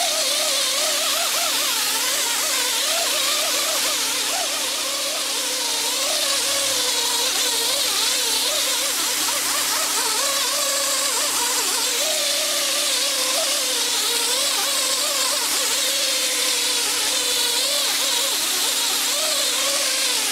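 A power polisher spins a foam pad with polishing compound across a plastic headlamp lens. The motor runs with a steady hum, and its pitch wavers up and down as the pad is pressed and moved over the lens.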